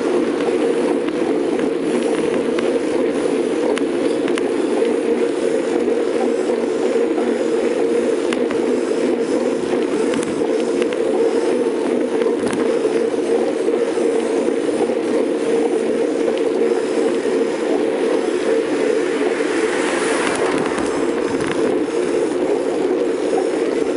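Steady riding noise of a bicycle moving along a road: a constant rushing hum from the tyres and wind on the microphone, with light ticking from the drivetrain. A brief louder hiss comes about twenty seconds in.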